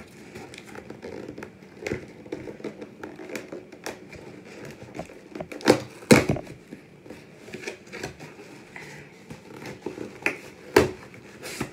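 Hands working open a small cardboard shipping box: scattered scrapes, taps and crinkles of cardboard and packaging, with a few sharp snaps about halfway through and again near the end.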